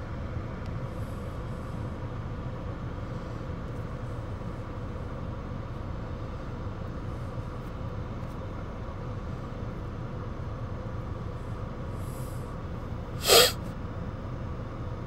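Steady low background hum with a faint steady tone underneath. Near the end, one short, loud burst of noise cuts through it.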